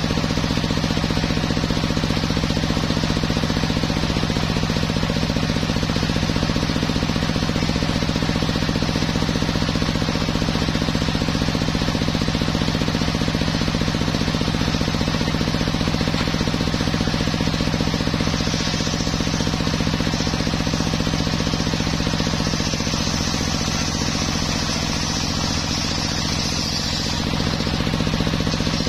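Homemade circular sawmill running with its large blade spinning free, not cutting. It makes a steady mechanical hum with a constant low tone from the blade and its drive.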